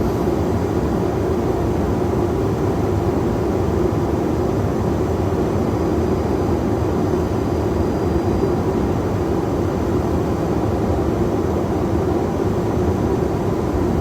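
Steady rushing noise inside the cockpit of an Airbus A330 on final approach, gear down and flaps full: airflow over the airframe with the engines at approach power, unchanging throughout.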